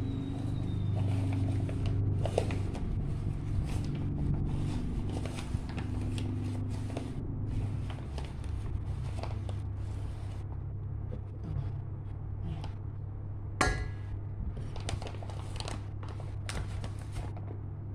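Plastic bag of all-purpose flour rustling and crinkling as flour is shaken out into an aluminium pot, with scattered small clicks and one sharper knock about two-thirds of the way through, over a steady low hum.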